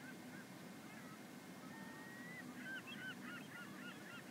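Faint bird chirping: short, high calls here and there, with a quick run of them from about two and a half seconds in.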